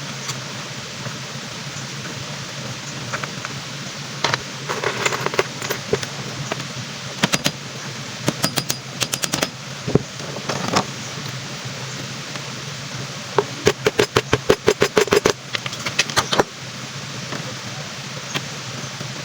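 Hand work on a wooden kitchen cabinet door: several bursts of rapid, sharp clicks and knocks, the last and longest at about eight a second, over a steady background hum.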